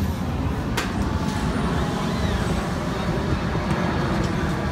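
Carnival midway ambience: a steady low rumble of ride machinery and generators, with a sharp click about a second in.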